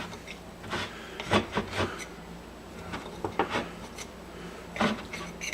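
Knife cutting cooked chicken into bite-size pieces on a cutting board: a run of irregular short cuts and scrapes.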